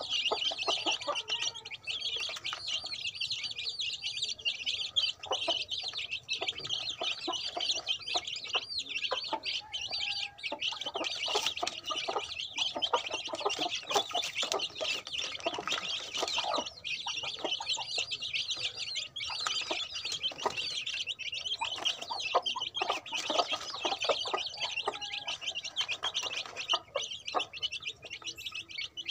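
A brood of young chicks peeping continuously, many high calls overlapping without a break.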